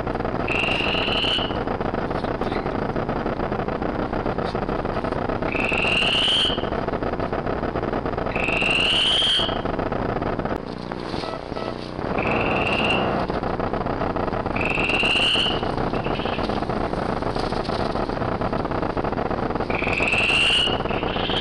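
A short, high call rising in pitch, repeated six times a few seconds apart over a steady hiss.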